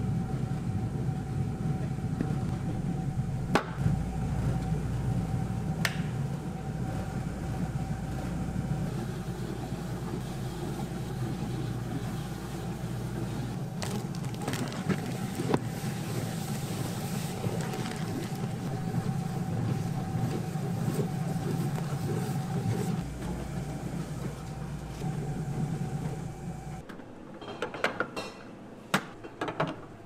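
Gelato machine's motor running steadily, a low hum with a thin whine, as it churns gelato in its steel bowl with chocolate sauce being mixed through. It stops suddenly about 27 seconds in, followed by a few light clicks and knocks of the spatula and lid.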